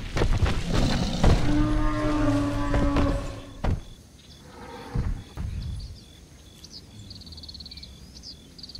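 A large animal's low, drawn-out bellowing call, like a moo, over the first three seconds. It then drops away, leaving a quieter stretch with faint high chirps.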